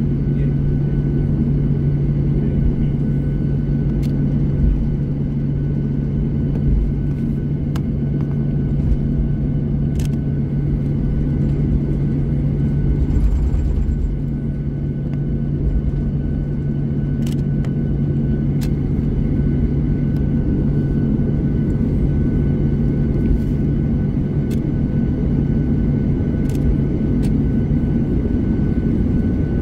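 Cabin noise inside a taxiing Boeing 737-800: a steady low drone from the CFM56-7B engines at taxi power over a low rumble, with a few light clicks.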